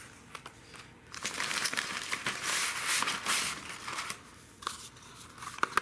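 Packaging crinkling and rustling as fireworks are handled and unpacked, loudest in the middle, with a few light clicks near the end.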